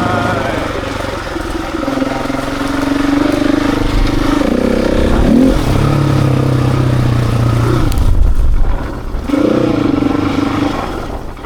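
Husqvarna 701 Enduro's single-cylinder engine pulling on the road, its note rising and falling several times with throttle and gear changes. The sound drops away near the end as the throttle closes.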